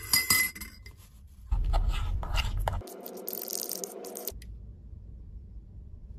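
A metal spoon clinking and scraping against a ceramic bowl while stirring powder into a thick paste. The loudest stretch runs from about one and a half to four seconds in, after which only a faint low hum remains.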